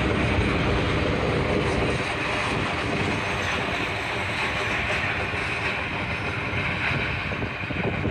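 Triple Crown RoadRailer train rolling past: steel wheels of the rail bogies under the highway trailers running on the track in a steady rumble. The last trailer goes by and the train carries on rolling away, the sound easing slightly after the first couple of seconds.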